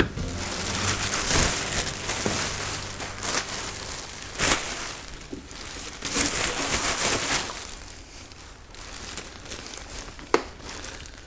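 Crinkly material being handled, with crumpling and rustling that comes and goes and a couple of sharp knocks.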